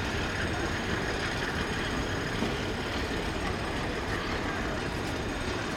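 A locomotive-hauled passenger train rolling away along the track: a steady rumble of its coaches' wheels on the rails.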